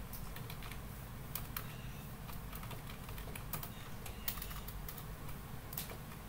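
Typing on a computer keyboard: irregular keystroke clicks over a steady low hum.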